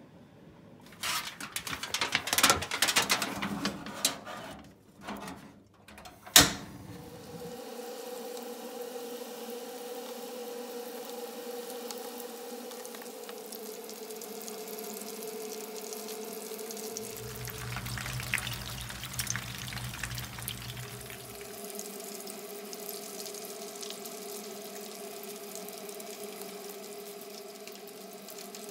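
Dishes clattering as they are set down, ending in a sharp knock about six seconds in; then spring rolls deep-frying in oil in a frying pan, a steady sizzle over a steady hum, with chopsticks clicking now and then.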